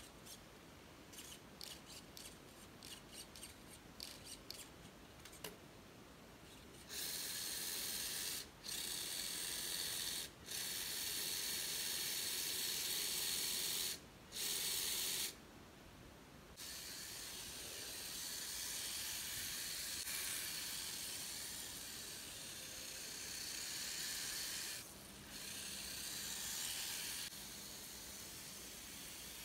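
Light clicks and taps of a plastic RC car chassis being handled. About seven seconds in, a steady hiss takes over; it cuts off and comes back abruptly several times and keeps going to the end.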